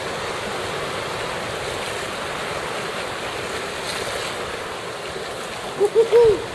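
Swell surging and breaking through a narrow sea channel between rocks: a steady rush of surf and white water. Near the end, a few short, loud whooping cries cut in.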